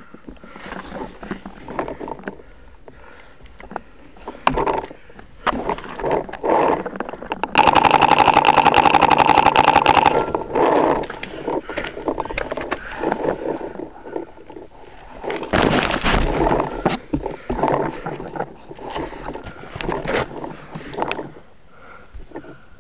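Paintball markers firing close by, with scattered pops and knocks of handling and movement, and a loud, rapid string of shots about eight seconds in that lasts two to three seconds.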